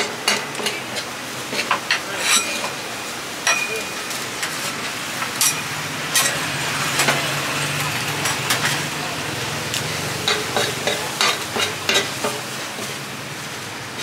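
Pieces of meat sizzling in a hot metal pan, stirred with a metal utensil that gives frequent sharp clicks and scrapes against the pan.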